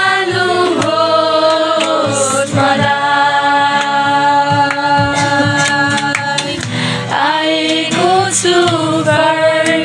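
A small group of voices singing a Christian worship song together in long, held notes, with an acoustic guitar accompanying.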